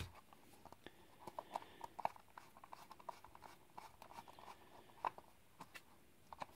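Screwdriver working at the plastic case of a Magellan GPS NAV 1000M receiver during its teardown: faint, scattered small clicks and scratches of metal on plastic, with a sharper click about five seconds in.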